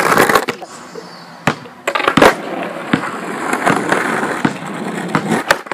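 Skateboard on concrete: a few sharp clacks of the board hitting the ground about one and a half to two seconds in, then the wheels rolling steadily, with more clacks near the end.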